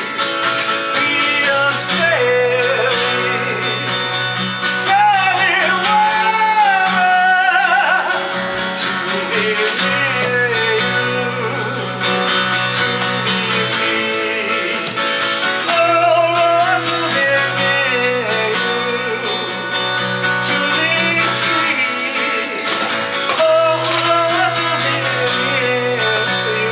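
A solo singer performing a song with guitar accompaniment: plucked and strummed guitar under sung lines that come and go.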